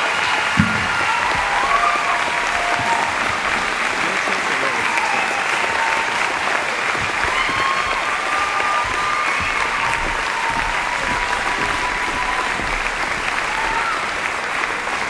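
Audience applauding steadily, with scattered voices calling out and whooping over the clapping.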